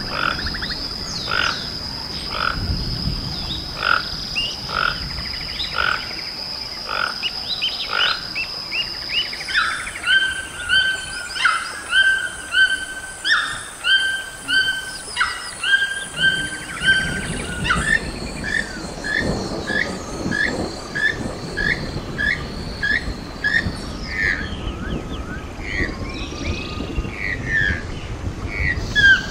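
A sequence of toucan calls, one species after another. First comes a series of short calls over a steady high tone. From about ten seconds in, a red-billed toucan (Ramphastos tucanus) gives repeated yelping calls, about one and a half a second. From about eighteen seconds, a channel-billed toucan (Ramphastos vitellinus) gives short repeated calls, about two a second.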